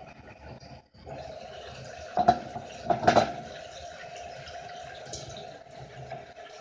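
Apple slices sizzling and bubbling in a frying pan, louder once the glass lid comes off about a second in. Two sharp clatters stand out around two and three seconds in.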